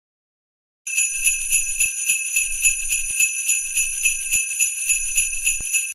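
Sleigh bells shaken in a steady rhythm of about three to four shakes a second, a bright jingling that starts about a second in and cuts off abruptly at the end.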